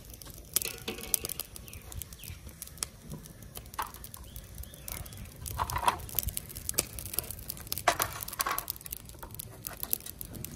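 Irregular light clicks and clinks of steel cookware and a bowl being handled, over a low steady background.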